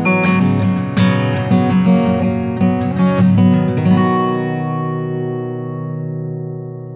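Acoustic guitar music, picked notes that end about four seconds in on a chord that rings and slowly fades.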